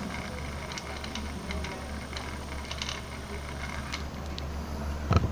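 Motor of a Cadence electric fan running on a function test, a steady low hum with scattered light clicks and one thump near the end.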